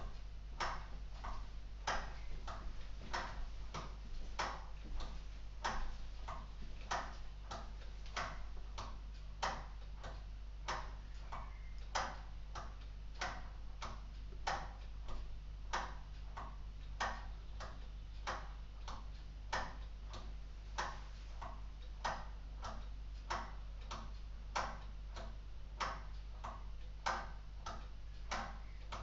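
LEGO Technic mechanical clock's escapement ticking steadily, about two ticks a second, alternating louder and softer.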